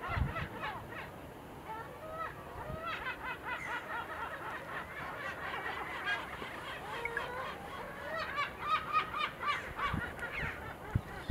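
A flock of gulls calling: many short, overlapping cries, busiest around three to five seconds and again around eight to ten seconds in, with a few low thumps.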